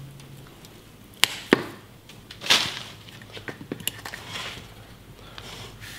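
A juniper branch being cut off: two sharp snaps about a second in, then a louder crack with a rustle of foliage, followed by a few smaller clicks.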